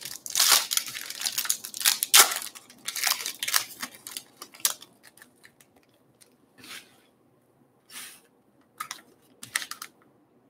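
Trading card pack wrappers crinkling and tearing as packs are handled and opened, a dense crackle for about five seconds, then four or five short separate rustles of cards and wrapper.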